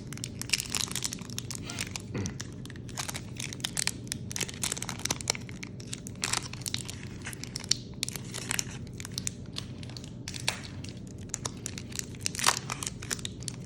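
Foil Pokémon booster pack wrapper crinkling and crackling as it is handled, with quick irregular rustles and crackles throughout.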